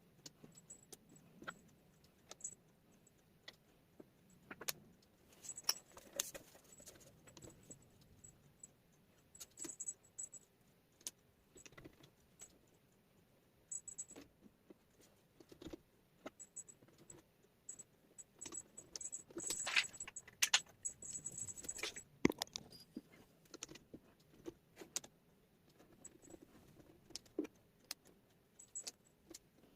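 Small wooden jigsaw puzzle pieces clicking and clattering as they are handled and set down, in irregular light taps, with a busier rattle of pieces about twenty seconds in.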